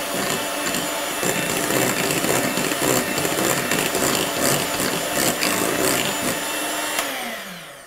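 Hand-held electric mixer beating cake batter in a glass bowl, its motor whirring steadily as the beaters churn. It is switched off about seven seconds in and winds down with a falling whine.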